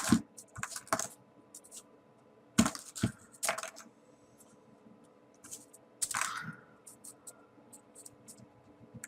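Small folded paper pieces of a 3D origami model being handled and pushed into place: scattered short clicks and brief paper rustles, with a longer rustle about six seconds in.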